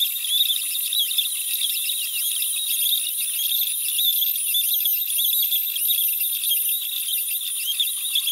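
CNC router spindle running at high speed while a small end mill cuts a pocket into a wooden plate. The sound is a thin, high-pitched whine whose pitch keeps wavering with the cutting load.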